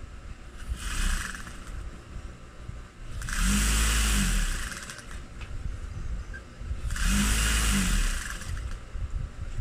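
Juki industrial high-speed sewing machine stitching in two bursts of about a second and a half each, about three seconds apart. At each burst the motor's pitch rises quickly as it speeds up and drops as it stops.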